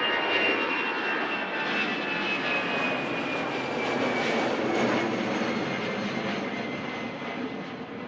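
Jet airliner's engines at takeoff power passing close: a loud roar with a high whine that falls steadily in pitch as it goes by, then slowly fades.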